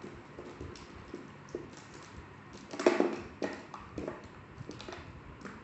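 Quiet handling noise of pen and paper on a notebook: scattered faint taps and rustles, the loudest a short cluster about three seconds in.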